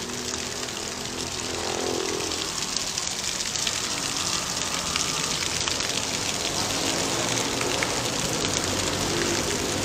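Tiered stone fountain splashing: water spilling from the basins into the pool makes a steady rush that grows a little louder over the first few seconds.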